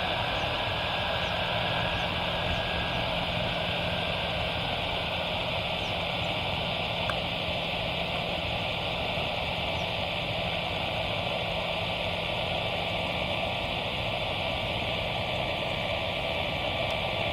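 Boeing 747-400 freighter's jet engines running steadily at low thrust, heard from a distance as an even hiss with a low hum and a faint whine, with no spool-up.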